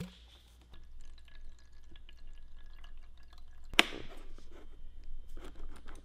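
Plastic parts of a robot vacuum being handled: scattered small clicks and rattles, with one sharp plastic knock a little under four seconds in.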